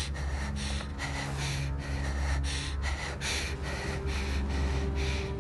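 A woman's rapid, panicked breathing, in quick strokes about four a second, over a low steady drone.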